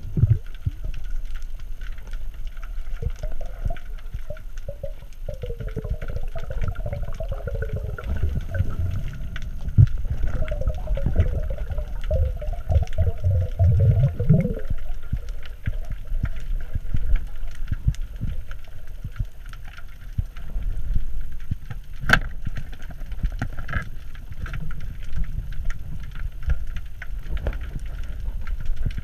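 Underwater sound through a GoPro's waterproof housing: a low, fluttering water rumble with gurgling, and a sharp click about 22 seconds in.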